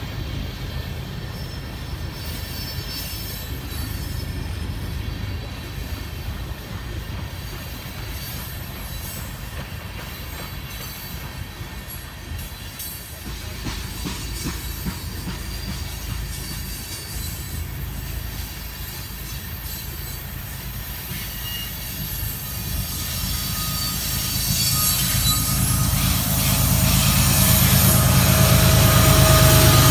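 A freight train of tank cars rolling past close by, a steady rumble of steel wheels on the rails. Over the last several seconds it grows louder, with a steady engine drone as diesel locomotives in the train come by.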